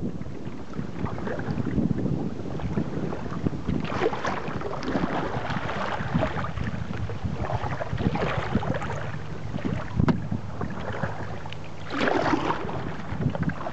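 Choppy lake water lapping and splashing against a small boat, with wind on the microphone; louder splashes come about every four seconds.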